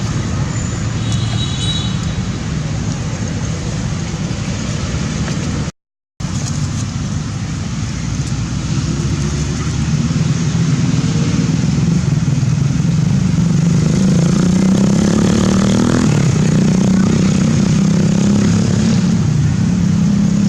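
Steady motor-vehicle traffic noise. From about nine seconds in, an engine's note comes up louder and wavers in pitch. The sound cuts out completely for a moment about six seconds in.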